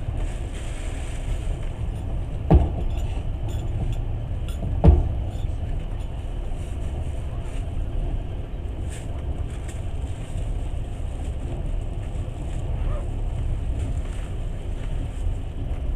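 Passenger train running along the track, heard from inside the carriage: a steady rumble of wheels on rails, with two sharp knocks a little over two seconds apart as wheels cross rail joints.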